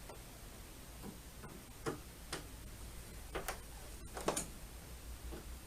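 Scattered, irregular clicks and taps of a hand screwdriver tightening screws into a TV's stand, about half a dozen over a few seconds.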